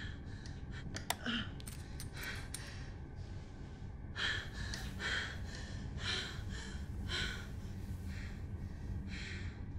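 A woman's heavy, ragged breathing and gasps, breath after breath, over a steady low hum. A single sharp click sounds about a second in.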